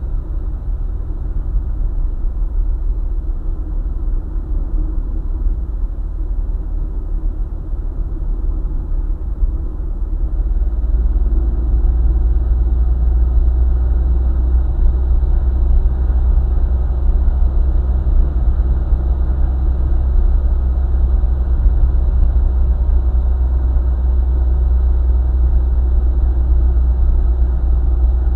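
Car travelling on a highway: a steady low rumble of engine and tyre road noise, getting louder about ten seconds in and then holding steady.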